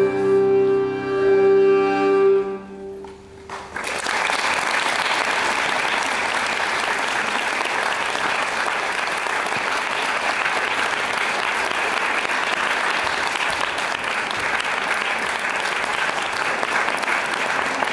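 Instrumental dance music ends on a held final chord, fading out about three seconds in; then an audience breaks into steady applause that lasts to the end.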